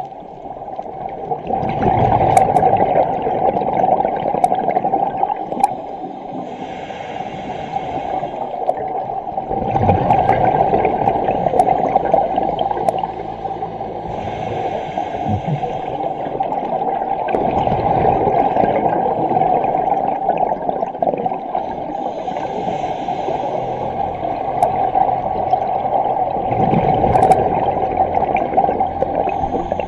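Scuba diver's breathing heard underwater: bubbly gurgling from the regulator's exhaust over a steady rushing hiss, swelling about every eight seconds with each exhalation.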